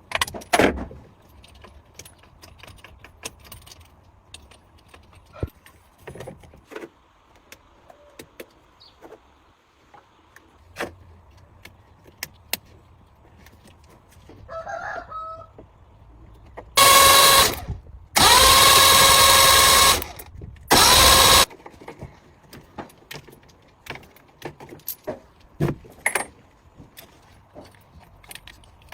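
Workshop sounds: light metallic clinks and taps of tools, then three loud bursts of a motorised tool running, about a second, two seconds and under a second long, in the second half.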